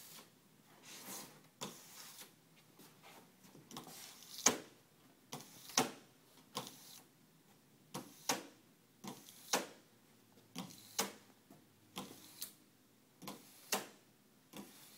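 Window scraper blade stroking across wet glass: short scraping strokes about once or twice a second, often in close pairs, the sharpest about four and a half seconds in.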